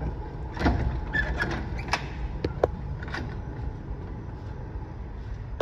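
Scattered clicks and knocks from a glass door's metal push bar being handled, over a low steady rumble. The door is locked.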